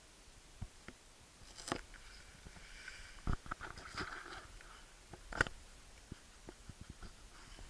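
A dog sniffing right up against the microphone, with a few sharp knocks and rubbing sounds as it bumps the camera.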